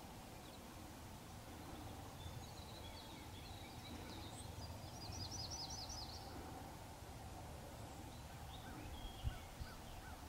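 Faint outdoor ambience with distant small birds chirping now and then, including a quick trill of rapidly repeated high notes about five seconds in, over a steady low rumble; a short soft knock near the end.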